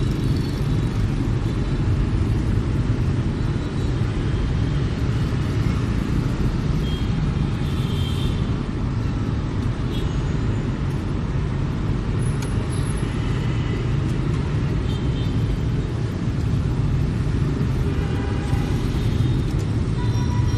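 Steady street traffic: motorbikes and cars running past, a continuous low rumble.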